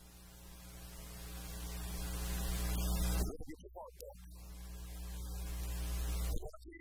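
A steady low buzzing hum with many overtones swells louder for about three seconds and cuts off suddenly. It then swells again and cuts off just before the end.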